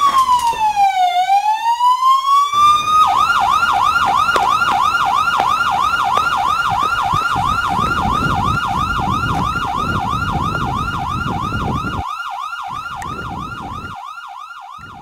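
Emergency-vehicle siren: one slow wail that falls and rises again, then a fast yelp cycling about three to four times a second, fading away over the last few seconds.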